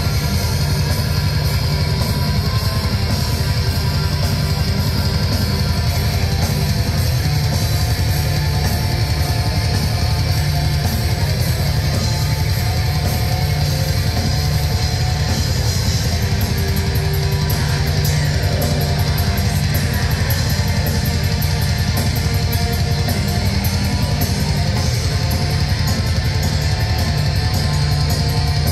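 Black metal band playing live at full volume: distorted electric guitars and drums in a dense, unbroken wall of sound.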